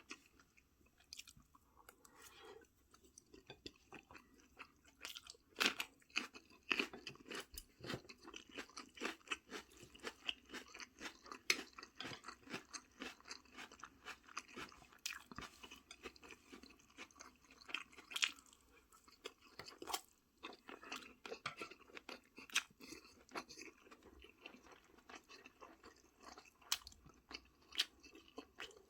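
A person chewing and crunching food close to the microphone, with many quick, irregular crackles and mouth clicks.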